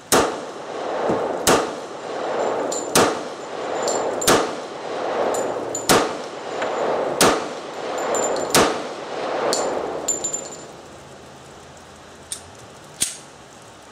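Seven pistol shots from a compact 1911 A1 .45 ACP, fired slowly at about one shot every second and a half, each followed by a long echo. A few lighter metallic clicks come after the last shot and again near the end.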